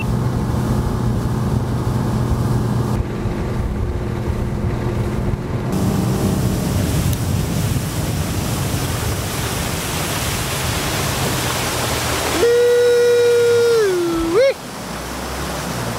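Bass boat's outboard motor running at speed, with a steady rush of wind and water over the hull. Toward the end a person lets out one long held yell that sags slightly in pitch and finishes with a short upward yelp.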